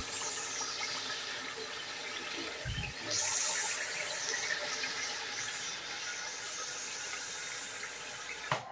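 A pot of lamb curry sizzling on the stove: a steady hiss with a single low thump about three seconds in. The sound cuts off abruptly near the end.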